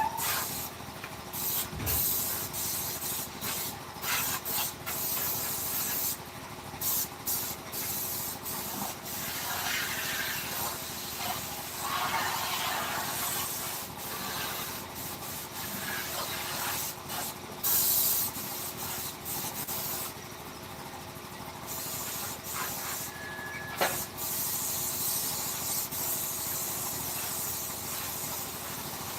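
Hissing, rubbing noise of workshop work on a wooden carving, starting and stopping every second or few seconds.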